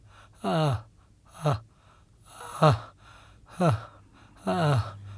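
A man sobbing hard: five short, choked cries, each falling in pitch, coming about once a second with breathy gasps between.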